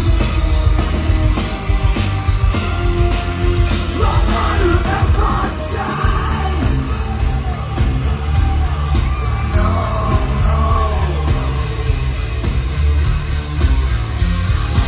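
Live band playing loudly, with electric guitar, keyboards and heavy bass, heard from the crowd; a singer yells the vocals from about four seconds in until about eleven seconds.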